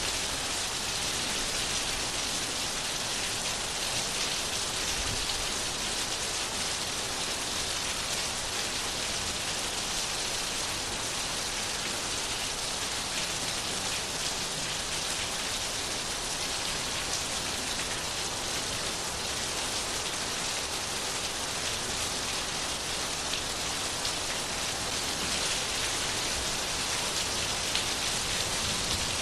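Steady rain falling, a continuous hiss of drops hitting a surface with fine drop patter throughout.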